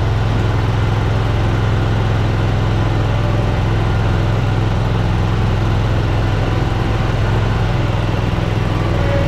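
Scag zero-turn mower's engine running steadily, having just started, with a constant low hum.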